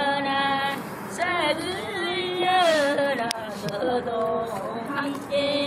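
Unaccompanied women's singing of a Korean folk work song: long held notes that bend and slide between pitches, with a short click a little over three seconds in.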